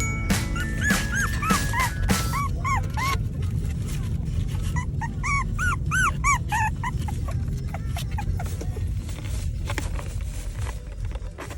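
Maltipoo puppy giving short high whimpers and yips: a few about a second in, then a quicker run of them around five to seven seconds in. Music plays underneath.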